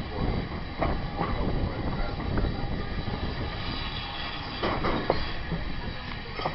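Wooden-bodied rail carriage running along the track: a steady rumble of the wheels, with a few sharp clacks over rail joints, the loudest about five seconds in.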